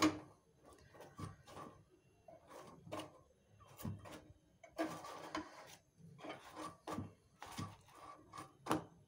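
Metal tongs and a flat spatula tapping, knocking and scraping against a gas stove's burner grate as a roti is turned over the open flame, in short irregular clicks with a few longer scrapes.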